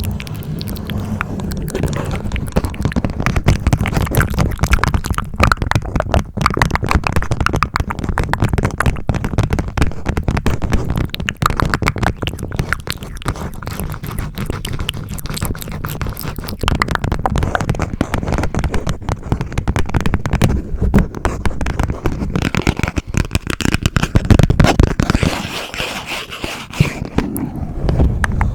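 Close-miked ASMR mouth sounds and tapping: a dense, fast run of clicks, taps and wet mouth noises with low thumps under them, loud, with a louder burst near the end.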